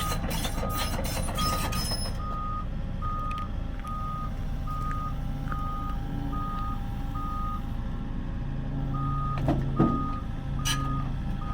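Backup alarm beeping steadily, about one and a half beeps a second with a short pause near the end, over a diesel engine running. Dense clattering for the first two seconds and a couple of knocks near the end.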